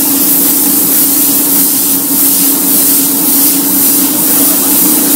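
Small gravity-feed paint spray gun spraying car basecoat: a steady hiss of compressed air atomising paint as a colour blend is feathered out over the panel. A steady low hum runs beneath it.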